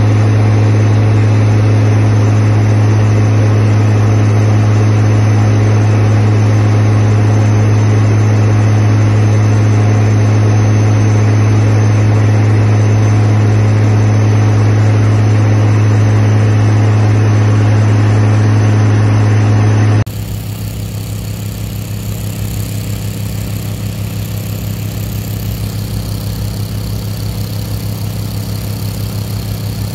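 Airport crash fire truck's diesel engine running steadily while it pumps water through its roof boom nozzle, a loud constant drone with a strong low hum. About two-thirds of the way through it cuts abruptly to a quieter, steady engine drone.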